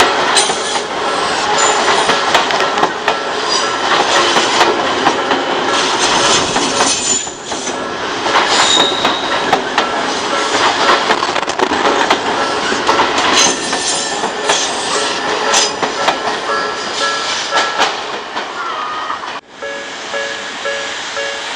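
Odakyu electric train passing over a level crossing: wheels clattering over rail joints with intermittent high flange squeal, while the crossing's warning bell rings in a steady repeating pattern. The sound breaks off abruptly near the end, leaving the crossing bell ringing more clearly.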